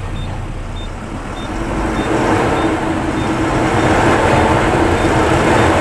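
Mahindra Furio 16 truck's diesel engine running with no foot on the accelerator, its revs climbing and getting louder from about a second and a half in. This is the raised, hunting idle that the owner calls a new problem with the truck's RPM.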